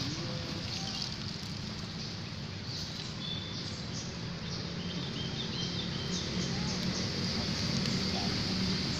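Steady outdoor background noise with a low hum, and a few short high-pitched bird chirps in the middle.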